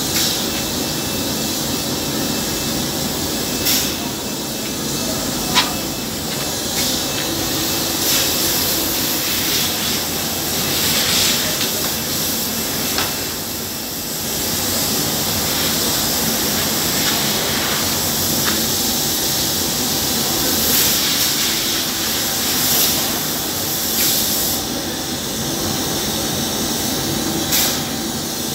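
Phoenix gelcoat spray gun hissing steadily as it atomizes gelcoat. A few short clicks and brief louder surges of hiss come as the gun is worked.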